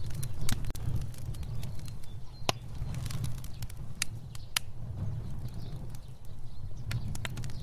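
Fire burning: a steady low rumble of flames with irregular sharp crackles and pops, the loudest pops about two and a half seconds in and twice around four to four and a half seconds in.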